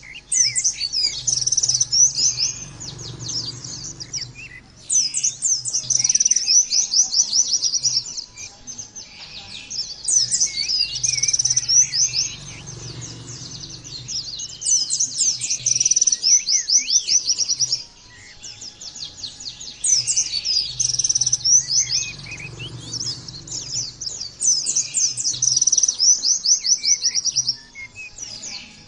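White-eye (pleci) song: fast, high, twittering chirps in repeated phrases of a few seconds each, with brief pauses between them.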